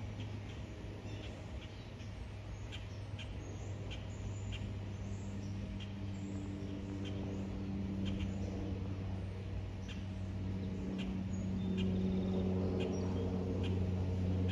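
Airplane engines droning high overhead: a low steady hum that grows louder as the plane comes over, with birds chirping now and then.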